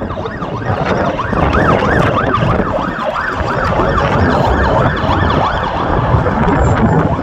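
Emergency vehicle siren sounding a fast rising-and-falling yelp, about three sweeps a second, over steady street traffic noise.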